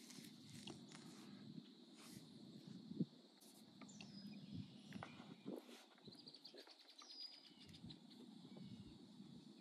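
Quiet lakeside ambience with faint birds calling: a short falling whistle twice and a rapid trill of ticks a little past halfway. One sharp knock about three seconds in.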